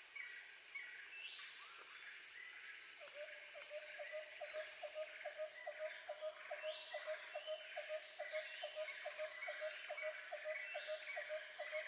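Background ambience track of chirping insects and birds. From about three seconds in, a steady pulsing call repeats about three times a second.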